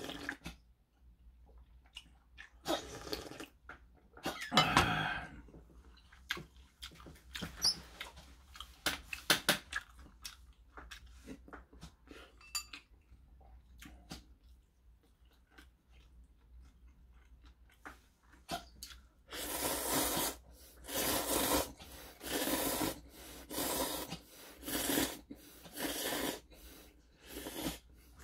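A man eating kimchi-jjigae with ramen noodles, with slurping and chewing and light clicks of chopsticks and dishes. In the last third comes a run of about ten short, evenly spaced slurping sounds.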